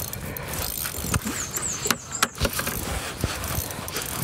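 Spinning fishing reel being cranked while playing a hooked fish, with scattered sharp clicks and knocks from handling the rod and gear.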